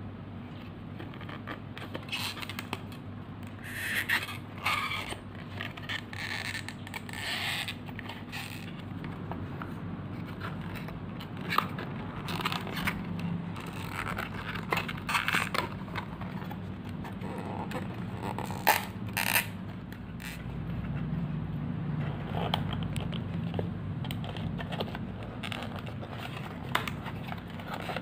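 3D house puzzle pieces being handled and pressed into slots in the base board: irregular scraping and rubbing with short sharp clicks, over a low steady hum.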